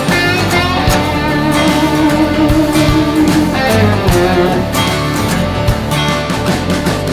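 Background rock music led by guitar, over a steady drum beat.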